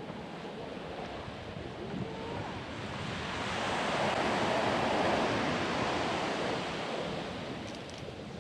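Ocean surf on a sandy beach: a wave swells and breaks, loudest about halfway through, then washes back down to a steady hiss of surf, with some wind on the microphone.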